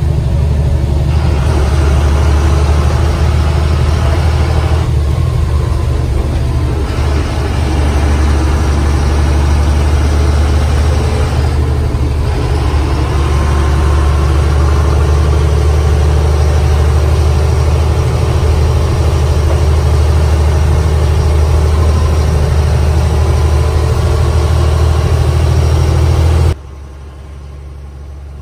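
Bus engine running as the bus drives, heard from inside the cabin: a steady deep drone with road noise over it. Near the end it drops suddenly to a much quieter low rumble.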